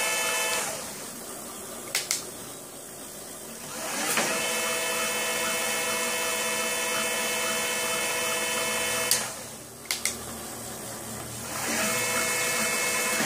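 Bafang BBS02 750 W mid-drive motor whining as it drives the chain and spins a bike's rear wheel on a stand. It eases off twice, at about a second in and again around nine seconds, with a pair of sharp clicks each time, then spins back up to a steady whine.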